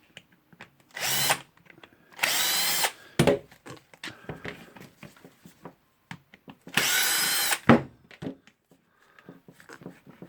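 A power screwdriver runs in three short bursts, about one, two and seven seconds in, whining up in pitch each time as it unscrews a Phillips screw from the handle cover. Between the bursts come small clicks and a sharp knock of the screws and plastic parts being handled.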